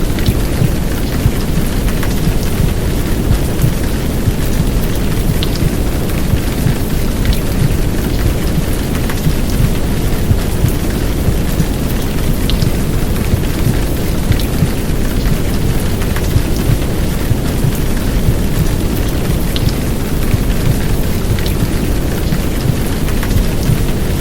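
Heavy downpour of rain, a steady dense hiss with scattered drop ticks, laid over a deep, even rumbling whoosh of womb sound.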